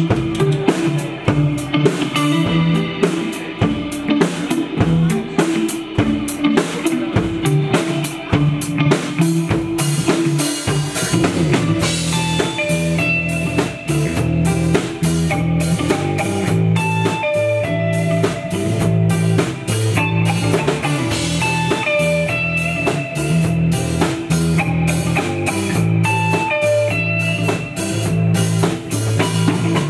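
Live rock band playing: drum kit, electric bass and electric guitars, with a Telecaster-style guitar picking single-note melodic lines. The bass and drums fill out the low end about ten seconds in.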